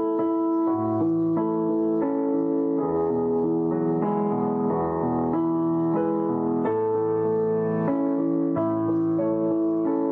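Background piano music: slow sustained notes and chords at an even level.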